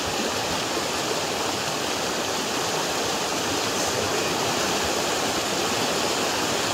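A river rushing steadily, a constant even roar of flowing water.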